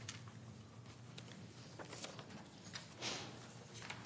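Quiet room tone: a faint steady low hum with a few soft clicks and a brief soft noise about three seconds in.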